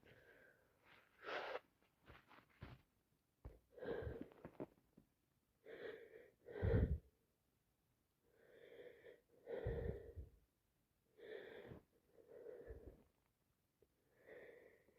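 A person with a cold and allergies sneezing and drawing wheezy breaths between sneezes: a string of short bursts a second or two apart, the loudest nearly seven seconds in.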